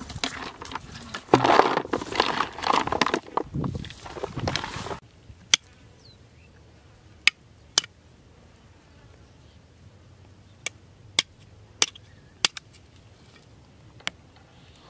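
A plastic basin being tipped and handled: about five seconds of dense scraping and rustling that stops suddenly. Then a knife knocking against something small on the ground: about nine sharp single clicks, a second or more apart.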